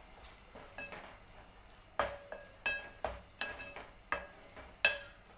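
Wooden spoon stirring and frying keema in a metal pot, scraping and knocking against the pot's sides so that the metal rings briefly at each stroke. The strokes are soft in the first two seconds, then louder and quicker, about two a second.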